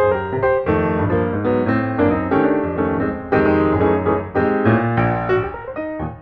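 Piano music: a stream of quickly struck notes and chords.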